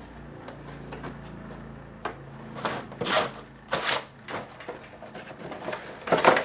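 Cardboard air-filter box being handled and opened to take out the new filter: a run of short scraping, rustling bursts about every half second, turning into quicker small clicks and taps near the end.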